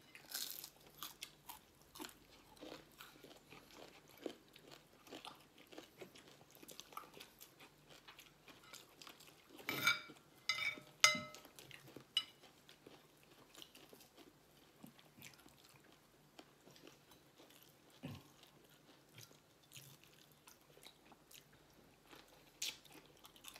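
Close-up chewing and crunching of people eating with their hands, with small mouth and food clicks throughout. About ten seconds in comes a short cluster of louder, briefly ringing clinks of dishware.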